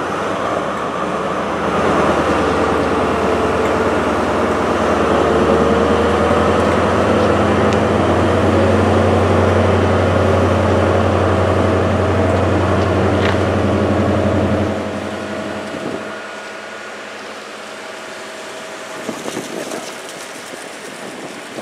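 High Speed Train's leading Class 43 diesel power car running under power as it moves away, a loud low engine drone. About 15 s in the drone drops away sharply, leaving the quieter rumble of the coaches rolling past on the rails.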